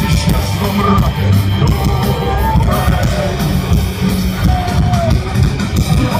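Live rock band playing loud, with singing over heavy bass and drums.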